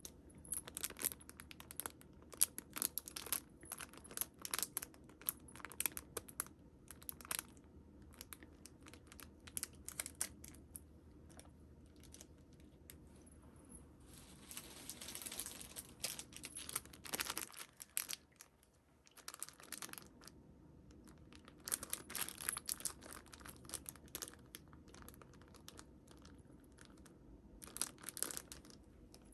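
Packaging and a plush backpack being handled: crinkling and rustling with many quick taps and clicks, and a longer stretch of rustling about halfway through.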